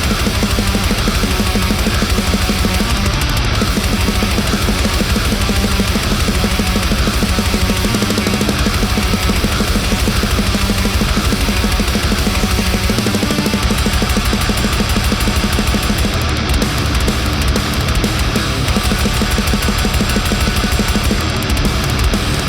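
Heavy metal music: a high-gain distorted electric guitar riffing over a drum kit.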